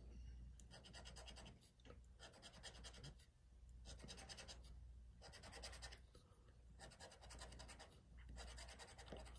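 Scratch-off lottery ticket having its coating scraped off with a pen-like metal scratcher tool, heard as a series of short, faint scratching strokes, one number spot after another.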